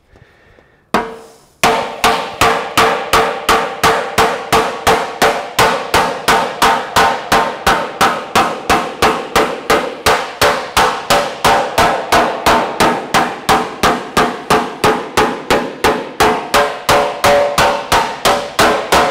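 Hammer blocking a metal car body panel to close up its edge. One blow comes about a second in, then a steady run of about three blows a second, each one ringing.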